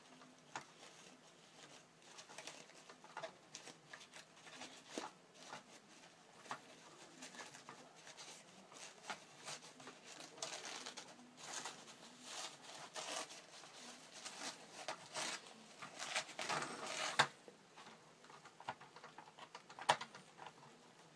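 Masking paper and tape being peeled off a painted plastic model and crumpled by hand: faint, irregular crinkling and rustling with small clicks, busiest a little past the middle.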